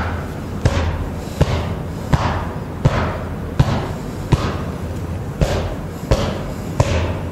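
A hand slapping the upper back in a steady self-massage patting rhythm, about one slap every 0.7 seconds, with a slightly longer pause a little past the middle.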